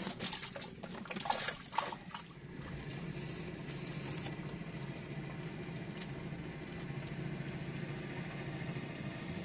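A small engine drones steadily, starting about two and a half seconds in, after a few light knocks and handling sounds in the first two seconds.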